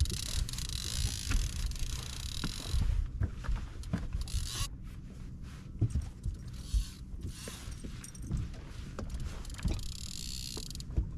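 Fishing reel whirring in several bursts of a few seconds as line is worked against a hooked musky, with scattered knocks on the boat and a low wind rumble on the microphone.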